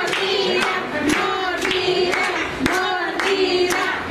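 A group of children singing together with steady hand claps keeping time.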